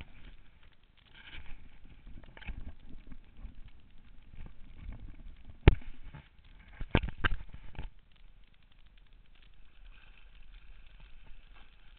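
Water sloshing and splashing close to the microphone, with a sharp knock a little before the middle, the loudest sound, and two more about a second later.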